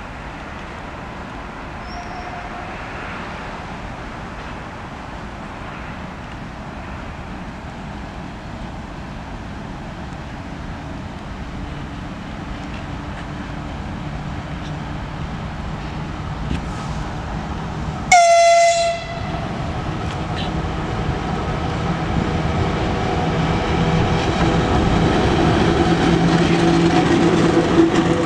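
VL10U two-section electric locomotive pulling away with a freight train. Its hum and the rolling noise of the wheels grow louder as it comes close, and about two-thirds in it gives one short, loud horn blast.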